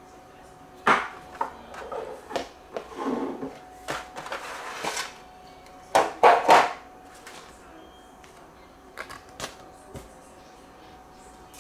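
White moulded packaging trays of a model-aircraft box being handled and pulled apart: irregular knocks, clicks and scraping rustles, loudest as the top tray is lifted off about six seconds in, then a few light clicks.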